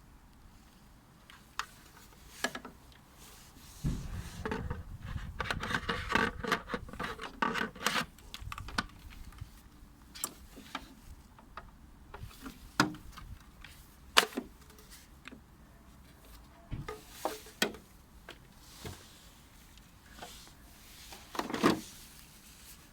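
Handling noises from unpacking a tool. There is a stretch of rubbing and rustling from about four to nine seconds in, with scattered sharp clicks and knocks throughout.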